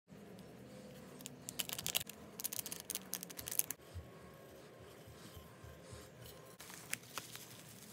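Small thin plastic bags crinkling as glitter is shaken out of them into a bowl. The rapid crackling comes in bursts from about one and a half to three and a half seconds in, then gives way to a few light clicks.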